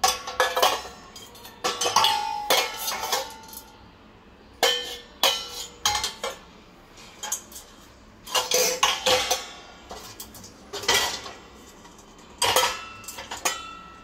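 Stainless steel bowls and pots handled in a dishwasher's wire rack, clanking and clinking against each other in repeated clatters every second or two. Several strikes leave a short metallic ring.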